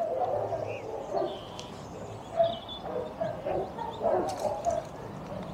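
Dogs barking on and off without letting up, heard from a distance, from what the angler takes to be kennels nearby. A bird chirps now and then.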